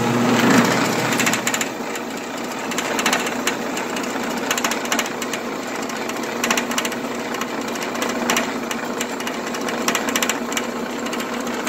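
Old Sears Craftsman 12-inch band saw switched on and running, pretty noisy, with a steady hum under a constant irregular clatter of clicks. The owner puts the racket down to the saw not having been tuned in a long while.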